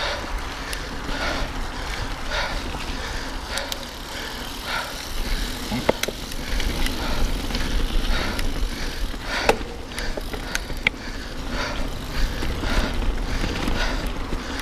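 Mountain bike riding over a rough trail: a steady low rumble of tyres and wind, a few sharp clanks from the bike over bumps, and a soft sound repeating about once a second.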